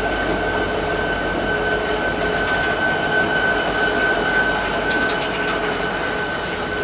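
Railroad train rolling past at close range: a steady rumble of wheels on the rails with a thin, steady high tone running through it and a few faint clicks about five seconds in.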